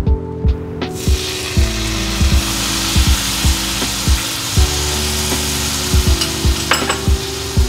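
Water poured into a hot nonstick frying pan hissing and sizzling into steam, the hiss starting sharply about a second in and running on; it is the water added to steam souffle pancakes before the lid goes on. Background music with a low beat plays under it.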